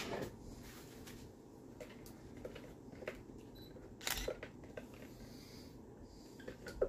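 Chopped onion scraped with a spatula out of a Tupperware Power Chef's plastic bowl into a cooking pot: faint scraping with light plastic clicks and taps, the sharpest knock about four seconds in.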